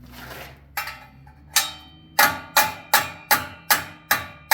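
Hammer blows driving sliding-door track mounts into wood: about nine sharp strikes starting about a second in and speeding up to two or three a second, each with a short ring.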